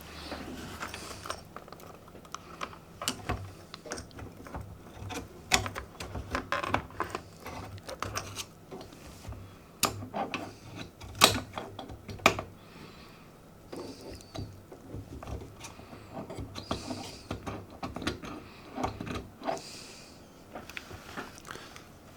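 Irregular clicks, taps and scrapes of hand tools and fingers working at the metal shield of a 6BE6 valve on an old valve radio chassis, trying to free it. A few short hissy scratching sounds come between them.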